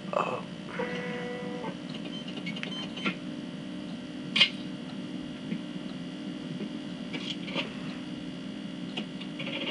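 Sci-fi film soundtrack playing from a computer: a steady low hum of spacecraft ambience with a short electronic tone about a second in and a few sharp clicks, the loudest about halfway through.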